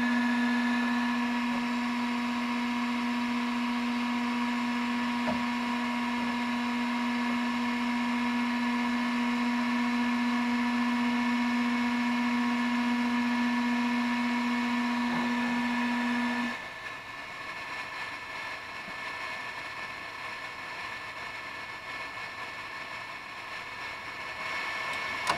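Dremel 3D40 3D printer's fans and motors running with the extruder heated: a steady hum with higher whines over a soft rush of air. The low hum cuts off suddenly about sixteen seconds in, leaving a quieter hiss and a high whine, and a slightly higher whine comes in near the end.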